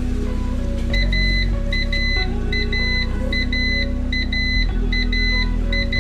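Background music: sustained low synth notes with a regularly repeating pattern of short high beeps, a short one followed by a longer one, coming in about a second in.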